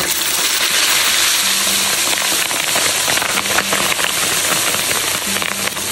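Slab of pork belly deep-frying in a wok of hot oil: a loud, dense sizzle full of crackling that grows louder as the meat goes into the oil.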